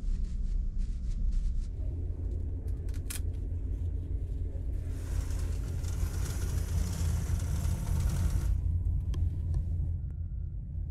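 Steady low drone of the ferry's engines and hull vibration inside a small capsule cabin. About halfway through, the fabric capsule curtain rustles for a few seconds as it is handled.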